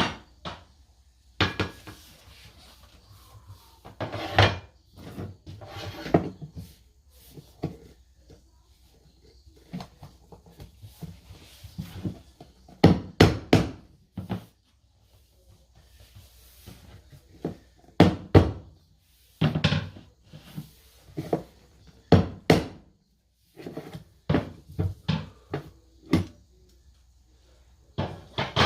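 Irregular wooden knocks and taps, some coming in quick clusters of two or three: laminate flooring planks being handled and tapped into place.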